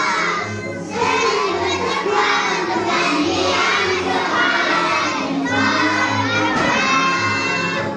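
A group of preschool children singing a song together in unison.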